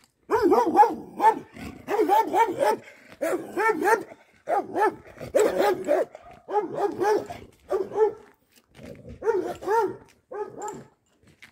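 A dog barking persistently, in quick runs of two to five barks separated by short gaps.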